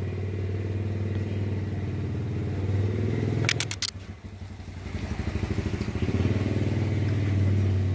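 A small engine running steadily with a low, pulsing hum, fading briefly about four seconds in, with a few quick clicks just before the fade.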